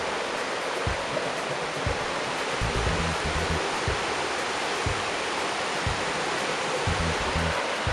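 Mountain river rushing steadily over boulders in whitewater rapids, with brief low rumbles every second or so.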